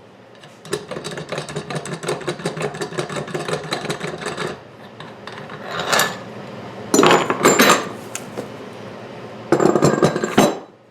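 Metal parts of a hand-held tire tool rattling and clicking quickly as it is worked, followed by several louder metal clanks.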